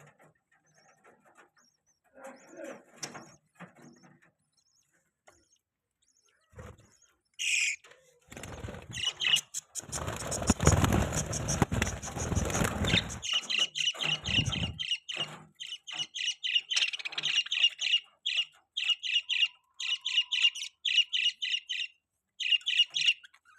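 Pet budgerigars chirping. It is mostly quiet at first, then there is a few seconds of broad rustling noise, then rapid, repeated high chirps, several a second, through the second half.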